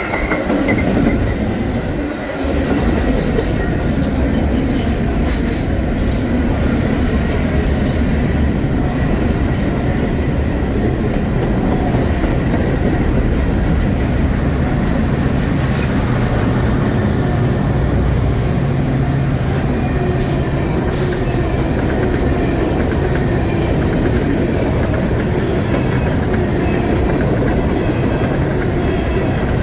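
A train rolling past, its wheels on the rails making a steady rumble, with a faint high wheel squeal at the start and a few short clicks.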